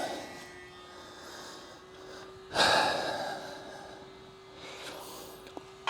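A single loud breath out, a sharp huff lasting under a second, about two and a half seconds in, over a faint steady hum.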